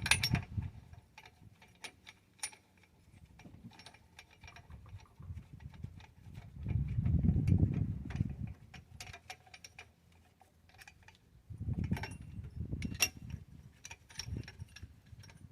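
C-clamp being worked against an old brake pad to push a brake caliper piston back: scattered metal clicks and clinks, with a low rumble about seven seconds in and again around twelve seconds.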